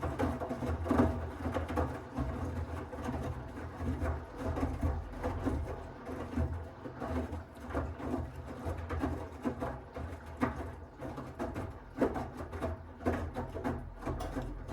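Miele W1 Active WCA 030 washing machine tumbling its load in the wash phase: wet laundry and water sloshing and knocking in the drum, irregular thuds over a steady motor hum.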